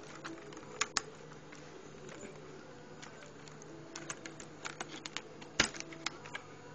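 Small plastic clicks and taps from handling an instrument cluster and its gauge overlay as it is pressed into place: two sharp clicks about a second in, then a run of quicker clicks from about four seconds, the loudest near the end.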